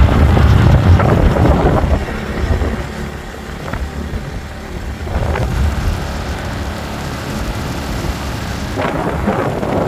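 Wind buffeting the microphone on a moving motorbike, with the bike's engine and road noise underneath. It is loudest for the first two seconds, then eases.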